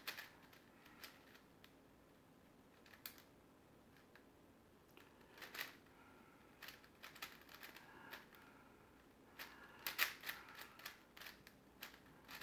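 Faint clicking of a plastic big puzzle cube (4x4 or larger) turned by hand, in short flurries of quick layer-turn clicks a few seconds apart, busiest near the end. The cube is at the edge-pairing stage of the solve.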